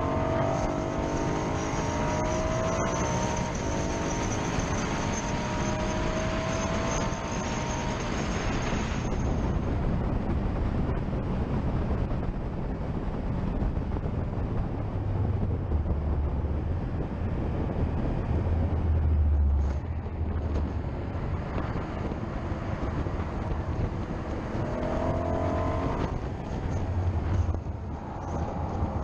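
A car's engine at full throttle on a racetrack, its pitch climbing through the first several seconds and again near the end. Heavy wind rush and road noise on the low, outside-mounted camera run throughout.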